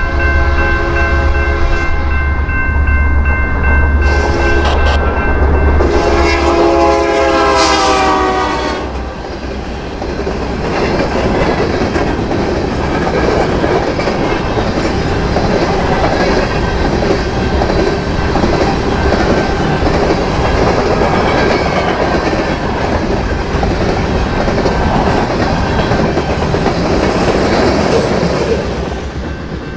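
Diesel freight locomotive blowing its air horn at a grade crossing: a long blast, a short one, then a long one whose pitch drops as the locomotive passes about eight seconds in, over the rumble of its engine. The freight cars then roll by steadily with a clickety-clack of wheels over the rails, and the crossing bell rings under the horn and cars. The rolling noise falls away near the end as the train clears the crossing.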